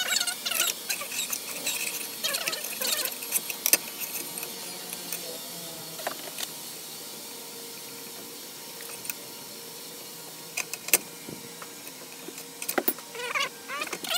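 Handling noise of small measuring and marking tools on a steel-topped bench: scattered clicks and taps as calipers and a pencil are picked up and set down, with short squeaky scrapes as a plastic stencil and pencil slide over the knife blade. A quieter stretch falls in the middle, and there is one sharp tick shortly before the squeaks near the end.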